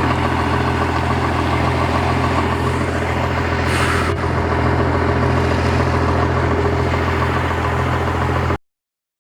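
First-generation Dodge Ram's 5.9-litre Cummins diesel idling steadily, with a short hiss about four seconds in. The sound cuts off abruptly near the end.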